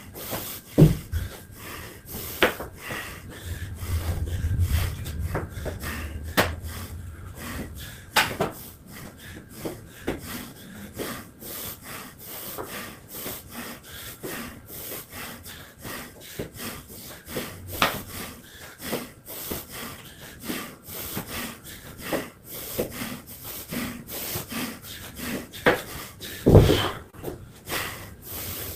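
A person breathing hard in rhythmic, rasping breaths while recovering between exercise rounds, with a couple of louder thuds, one about a second in and one near the end.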